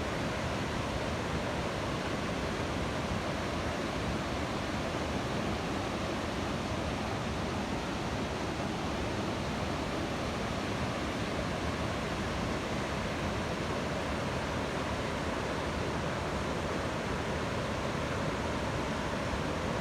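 Waterfall: falling water making a steady, even rushing noise with no change in level.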